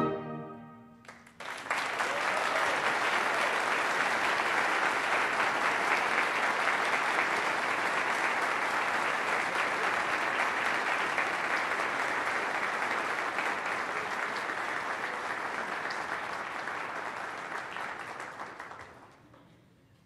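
A concert band's final chord is cut off and rings away in the hall; about a second later the audience breaks into steady applause, which thins and fades out near the end.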